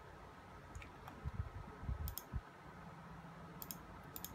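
Faint sharp clicks, several in quick pairs, with a few low bumps about a second or two in: handling noise from a small phone being held and moved.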